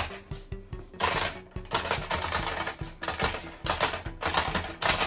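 Rapid, irregular plastic clacking from a two-player boxing-figure toy as both players hammer its levers and the figures' arms knock together, in dense flurries of clicks.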